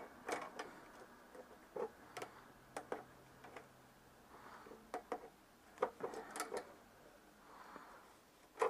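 Scattered light clicks and knocks of hand tools and small metal parts being handled while cables are fitted in a car's engine bay, irregular and unhurried, with a sharper knock near the end.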